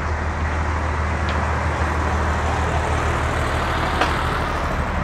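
A motor vehicle running steadily with road noise: a constant low engine hum under an even rushing noise.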